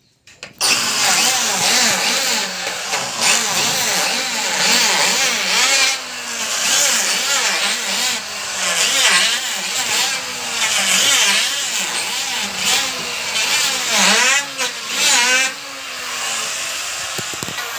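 Wood planing machine running loud, its motor pitch repeatedly dipping and recovering as beams are fed through. The sound starts suddenly about half a second in.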